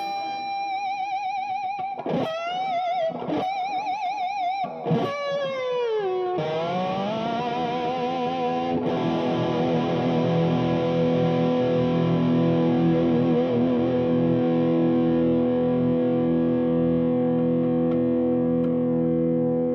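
Fernandes FST-65 electric guitar played through an amp with light distortion: a few sustained single notes with wide vibrato, one sliding down in pitch, then a chord struck about six seconds in and left ringing out.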